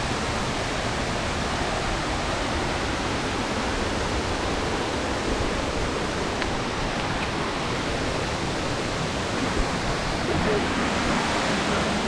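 A waterfall rushing steadily, running full with monsoon water.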